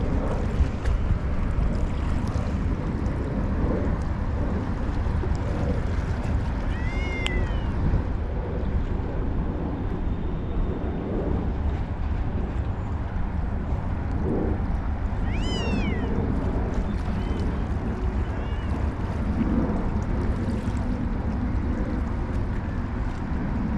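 Steady outdoor rumble and hiss of wind and water. Two short high-pitched cries, each rising then falling, sound about a third of the way in and again just past halfway.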